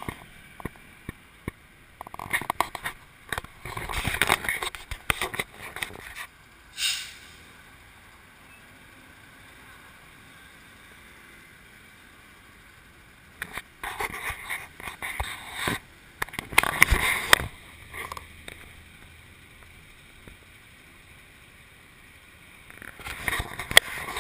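Wind buffeting and rumble on the microphone of a camera riding on a moving motorbike taxi, coming in bursts a few seconds long. Between them are long quieter stretches of low traffic hum while the bike sits in stopped traffic.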